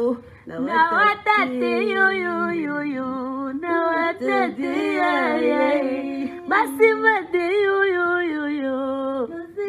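Women's voices singing unaccompanied, long held notes with a wavering vibrato.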